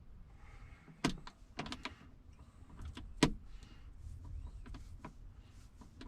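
Handling noises from the stereo wiring in the dash: a few sharp clicks and knocks of plastic connectors and wires, the loudest about three seconds in.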